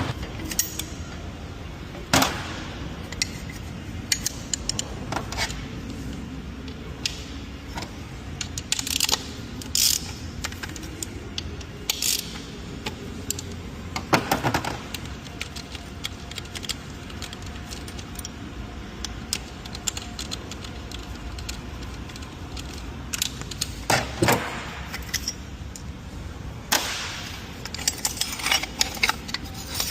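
Metal hand tools and small metal parts clinking, jingling and knocking at irregular moments during clutch work on a DQ200 dual-clutch gearbox, over a steady low background hum.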